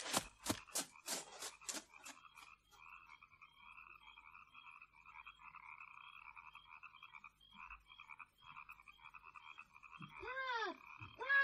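Frogs croaking in a steady, fast-pulsing chorus, a night-time pond sound in a mono radio-play recording. Near the end a voice calls out twice.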